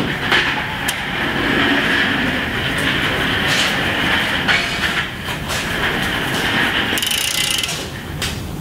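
Large drum shop fan running with a steady whir, over scattered clicks and knocks as the crankshaft of a small-block Chevy short block is turned by hand with a ratchet wrench to degree the cam, and a short rasping burst of metal work near the end.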